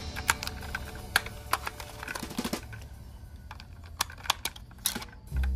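Batteries being fitted into the plastic battery compartment of a toy train locomotive: a run of sharp, irregular clicks and taps of battery and plastic. Background music comes back in near the end.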